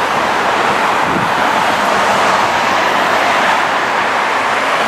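Steady street traffic noise, with wind on the microphone.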